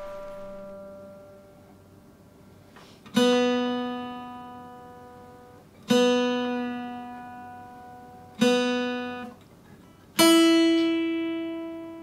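Guitar played slowly: a note or chord plucked four times, each left to ring out and fade, the third damped after about a second and the last one pitched higher.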